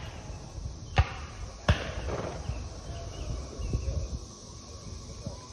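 Two sharp reports of distant musket gunfire, about a second in and again under a second later, each trailing off in a short echo.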